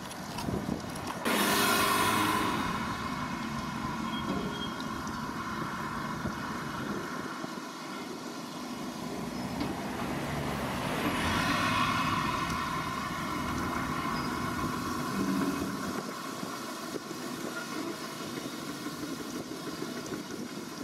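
Volvo EC250E excavator's diesel engine working through demolition, with a sudden loud noise about a second in that lasts about a second. The machine noise swells again around the middle.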